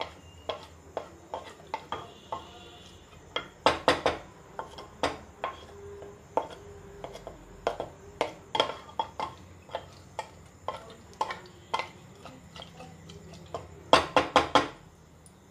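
Wooden spatula stirring rice, vegetables and water in an aluminium pressure cooker, scraping and knocking against the pot's metal sides in irregular clicks. A quick run of louder knocks comes about four seconds in and again near the end.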